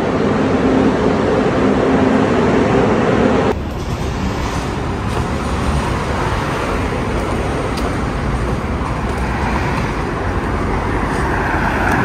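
Steady rumble and hum of a subway platform; about three and a half seconds in it cuts off abruptly to a steady wash of street traffic noise.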